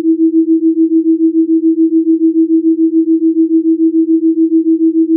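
Electronically generated pure tone for a delta-wave Rife frequency track: a single steady low-mid pitch that pulses evenly in loudness about seven times a second, the beat of two close tones sounded together.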